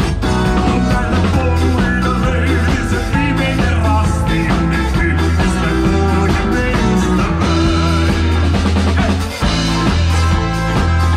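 Live rock band playing through a PA: electric guitar, bass guitar, drum kit and keyboard with a male lead singer, a steady beat throughout and a brief break about nine seconds in.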